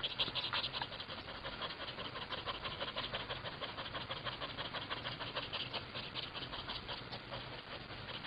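Domestic cat panting open-mouthed with its tongue out, like a dog: quick, even, rasping breaths, several a second.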